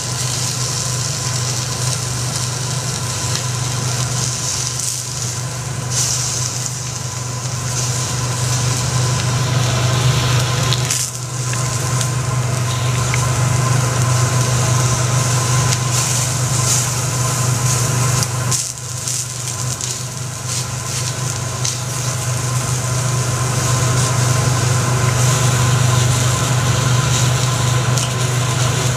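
Lobster meat sizzling on a steel teppanyaki griddle, with a spatula and fork scraping and tapping the hot plate in scattered clicks, over a steady low hum.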